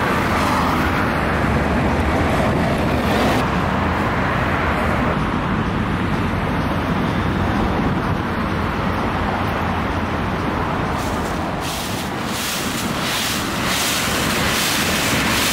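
Steady street traffic noise. In the last few seconds dry autumn leaves crackle and rustle underfoot as someone walks through them.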